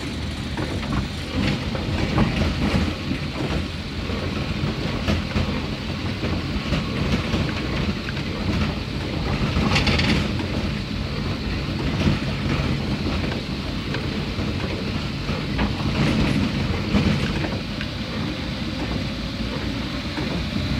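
Rain and running noise heard from inside a vehicle's cabin as it drives slowly in the wet: the engine and tyres run steadily low while rain hits the windscreen and the wipers sweep across it, with a brighter swish about halfway through.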